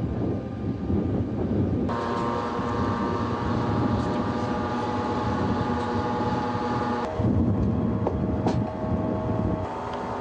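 Heavy military vehicle machinery running with a steady low rumble and wind on the microphone. About two seconds in, a steady whine of several tones sets in; it stops suddenly about seven seconds in and returns near the end. A sharp click comes about eight and a half seconds in.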